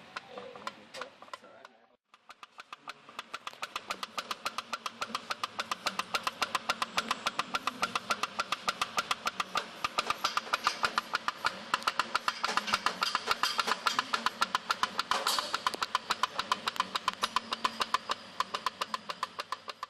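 Homemade pop-pop steam boat engine popping rapidly and evenly, several pops a second. It cuts out briefly about two seconds in, then picks up again and grows louder.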